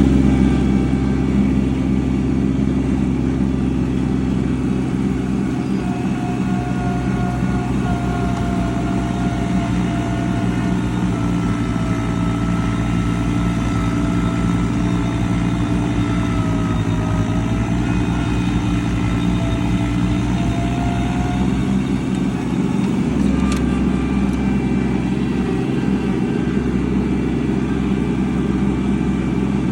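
An engine running steadily under load, with a fainter whine that wavers in pitch from about six to twenty-two seconds in.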